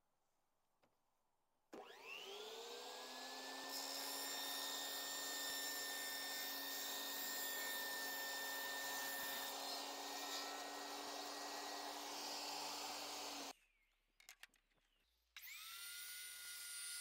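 Electric power-tool motor on a table-saw and router-table station spinning up to speed and running steadily. It cuts off suddenly, then spins up again near the end.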